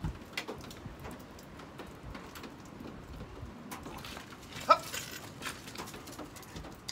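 A Labrador gives one short, sharp rising yip about two-thirds of the way through, over faint outdoor hiss and a few soft knocks.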